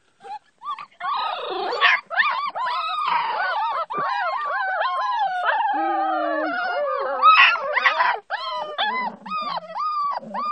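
A litter of bull terrier puppies whining and yelping together: many overlapping high cries that rise and fall.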